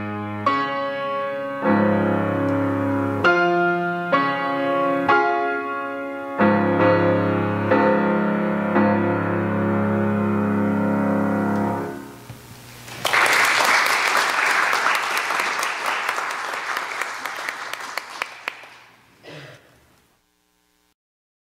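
Grand piano playing slow, full chords, ending on a held final chord about twelve seconds in. Then about six seconds of applause, a short bump, and silence.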